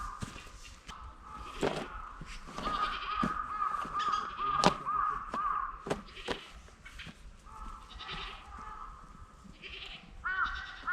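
Birds calling outdoors in long runs of repeated harsh, wavering notes, with a few sharp knocks among them; the loudest knock comes about halfway through.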